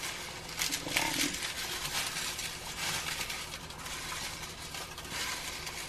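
Dry taro leaves rustling and crackling as they are lifted by the handful from a bowl and dropped into a pan of simmering coconut milk.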